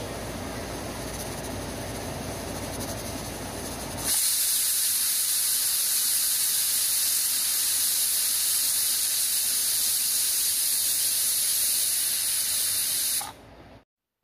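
Stovetop pressure cooker whistling: a lower rushing noise, then about four seconds in a loud, high, steady hiss of steam escaping under the weight valve, which holds for about nine seconds before stopping. The whistle is the sign that the cooker has come up to pressure and is venting.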